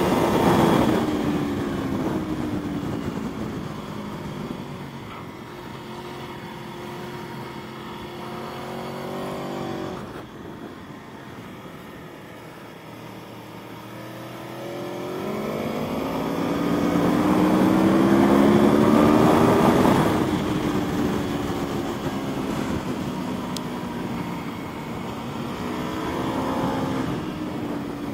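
Aprilia Tuono V4 motorcycle's V4 engine running hard at track speed. Its pitch falls off in the first couple of seconds and sits lower for a while, then climbs strongly past halfway as the bike accelerates, peaking and cutting off sharply about two-thirds of the way through, with a smaller rise near the end.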